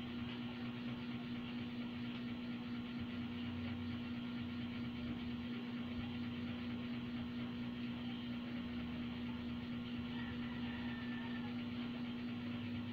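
Steady mechanical hum with one constant low tone and a hiss above it, unchanging throughout.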